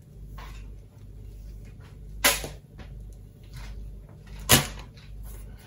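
A length of PVC-coated multi-strand electrical cable being handled and looped, with faint rustles and two sharp knocks, about two seconds in and again about four and a half seconds in, the second one louder.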